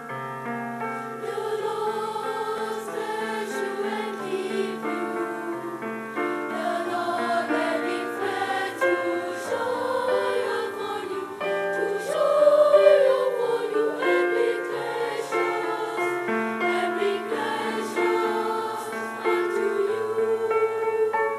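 A boys' choir singing in harmony to keyboard accompaniment, swelling loudest about twelve seconds in.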